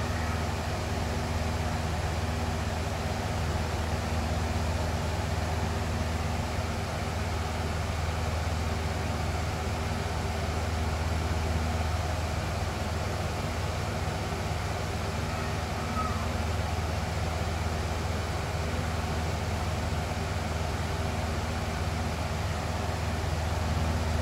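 Box fan running steadily: an even rush of air over a low motor hum, unchanging throughout.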